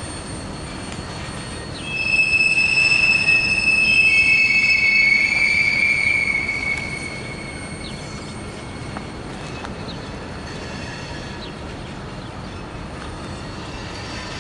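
Steel wheels of freight cars rolling slowly through a curved yard track, squealing in several high overlapping tones from about two seconds in until about seven seconds in, over the steady low rumble of the moving cars.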